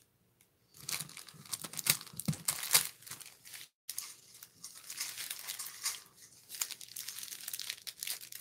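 Plastic packaging of a diamond painting kit crinkling irregularly as the bags and canvas sleeve are handled, starting about a second in, with a brief gap near the middle.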